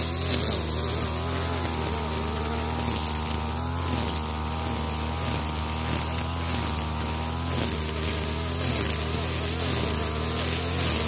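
STIHL FR3001 backpack brushcutter's two-stroke engine running at high speed while its nylon trimmer line cuts tall grass. The pitch wavers slightly as the load changes.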